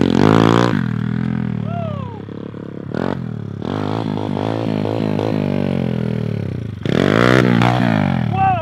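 Small Kawasaki pit bike's engine revving up and down as it is ridden hard, its pitch rising and falling with each twist of the throttle; it is loudest near the start and again about seven seconds in.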